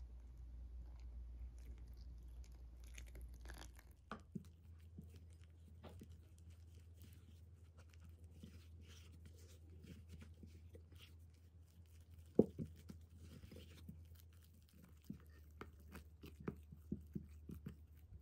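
Boiling water poured from a saucepan onto bread flour in a bowl, then a spatula stirring and mashing the two into a thick, sticky water-roux paste. Irregular scrapes and small clicks of the spatula against the bowl, the loudest about twelve seconds in and a quick run of them near the end.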